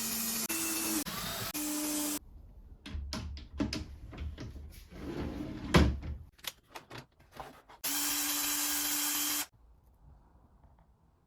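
A power tool running in short bursts, then a run of knocks and clicks as wooden parts are handled, then the tool runs again for about a second and a half and cuts off suddenly.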